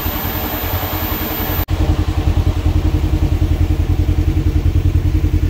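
Kawasaki Teryx KRX 1000's parallel-twin engine idling under the steady air noise of its dual 14-inch roof fans running at about 70%. About a second and a half in the sound cuts off abruptly and comes back with the engine running a bit above idle: a louder, evenly pulsing low note with less fan hiss.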